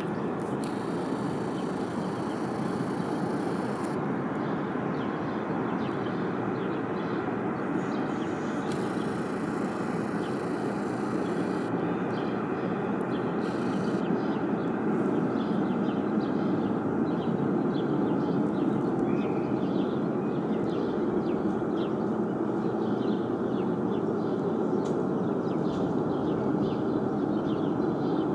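Ariane 5 rocket engine firing on a test stand: a steady, even roar that grows slightly louder about halfway through.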